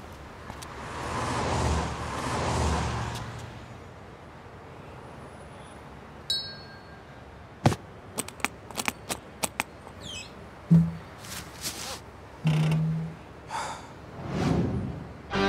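Street traffic noise swells and fades over the first few seconds. Later comes a quick series of sharp metal clicks as the draw latches of a hard guitar case are flipped open.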